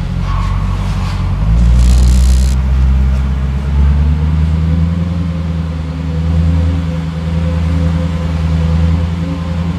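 Audi B7 S4's 4.2-litre V8 through a Milltek exhaust with resonator, heard at the tail of the car, running steadily at low revs, about 1,000 rpm, while the car rolls along in Drive. A slight swell comes about two seconds in.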